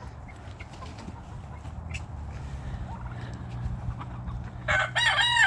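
A rooster crowing near the end: a few wavering notes, then a long held note, loud over a quieter yard with a low steady hum and a few faint clicks.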